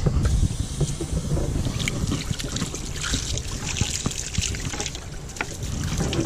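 Running water trickling and splashing as a fish fillet is rinsed on a cleaning table, with small taps and splashes of handling.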